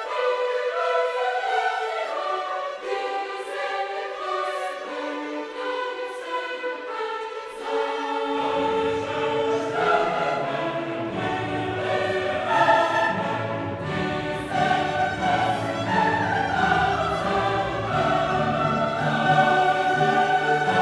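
Classical choral music: a choir singing with orchestra. A fuller, heavier bass joins about eight seconds in.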